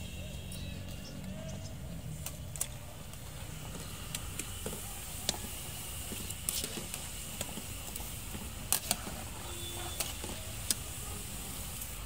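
Food deep-frying in a large aluminium pot of hot oil: the oil sizzles steadily while a wire skimmer clinks against the pot several times as fried pieces are lifted out, over a steady low rumble.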